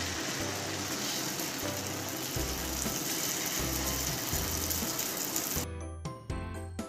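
Malpua batter frying in hot ghee in a pan: a steady, crackling sizzle. About five and a half seconds in, the sizzle cuts off and a short music jingle with chiming notes begins.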